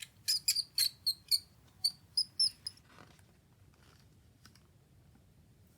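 Mouse squeaking sound effect: about nine short, high-pitched squeaks in quick succession during the first two and a half seconds, then it stops.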